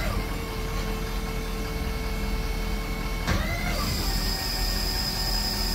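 Hydraulic system of an Altec AT235 bucket truck's boom running over the truck's engine, a steady whine. Its pitch shifts with a short glide a little past halfway as the boom's motion changes, and a higher steady whine joins soon after.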